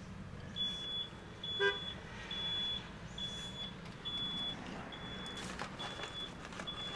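Car warning chime beeping steadily, a single high electronic tone repeating a little faster than once a second, eight beeps. About a second and a half in, a brief high squeak sounds over it.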